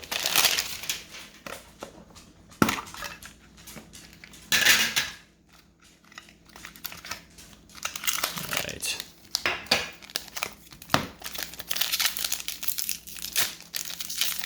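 Plastic wrapping and card packs crinkling and tearing as a Pokémon card mini tin is unwrapped and opened, in irregular bursts with a couple of sharp clicks.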